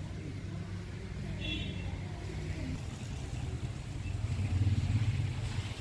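Wind buffeting the microphone: an uneven low rumble that swells into a stronger gust about four seconds in. A brief high chirp sounds about a second and a half in.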